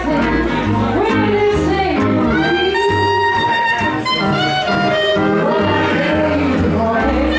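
Live country band playing, with a lead instrument carrying the melody over a bass line. It holds one long note about three seconds in.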